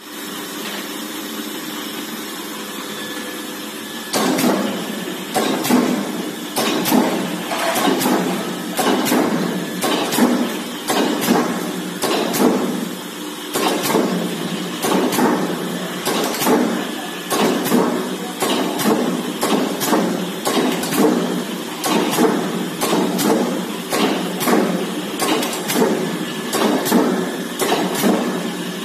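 Komatsu OBS-80-3B 80-ton C-frame single-crank mechanical press: the motor and flywheel run with a steady hum, then about four seconds in the ram starts cycling in continuous strokes, a knock a little more than once a second.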